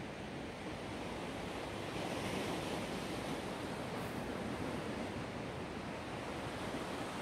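Black Sea waves breaking and washing ashore in a steady rush, swelling a little about two seconds in.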